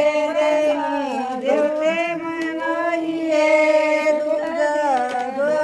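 Singing: a slow, wavering sung melody over a steady low note that is held throughout.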